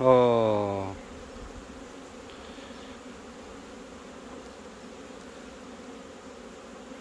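Honeybees buzzing over an open hive, a steady hum. A man's drawn-out voice trails off in the first second.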